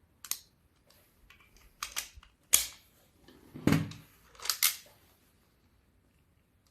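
Hard plastic clicks and snaps of an Ultraman Geed Riser toy's capsules being handled and pushed into its capsule holder: about six separate sharp clicks, the loudest about two and a half seconds in, with a heavier knock just after.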